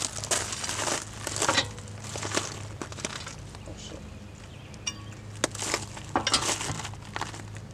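Crunching of gravel underfoot as a person shifts and crouches, with small metallic clinks of a lug wrench being picked up and fitted onto a car wheel's lug nuts. The crunches come in irregular bursts, with a quick run of clicks about five seconds in.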